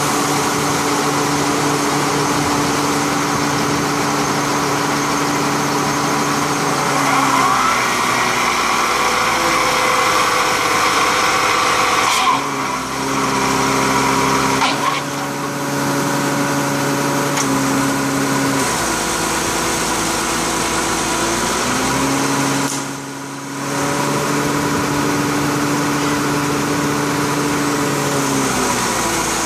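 Drilling rig's engine and hydraulic drive running steadily. Its pitch shifts down and up in several steps as the rotation speed is adjusted at the control panel, with a few brief dips in level.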